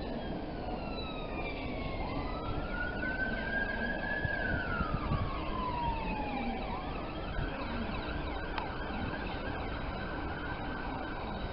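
Emergency vehicle siren wailing. Its pitch sweeps up about two seconds in, slides down, then sweeps up again and holds, over a steady rumble of rail and city background noise.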